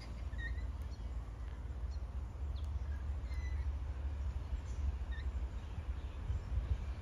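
A few short bird chirps scattered over a steady low rumble.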